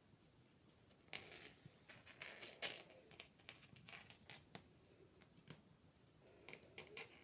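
Faint, irregular clicks and taps of a small tube lid knocked and skittering across the floor as a cat bats it with its paws, the loudest knock about two and a half seconds in.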